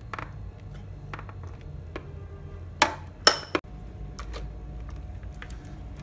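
Two sharp clinks against a glass bowl about half a second apart near the middle, each with a brief ring, among faint light clicks as marinade is worked over whole tilapia.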